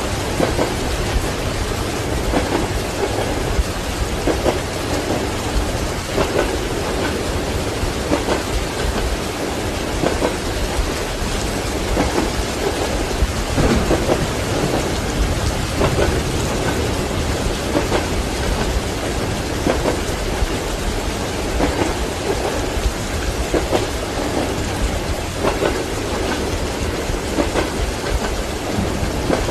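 Steady heavy rain with rolling thunder, mixed with the faint repeated clack of train wheels over rail joints.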